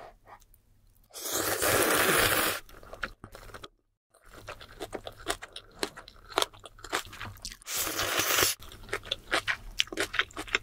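Close-miked eating of jjajang (black-bean-sauce) instant noodles: two long loud slurps, one about a second in and one near the end, with stretches of quick, wet chewing and crunching in between and after.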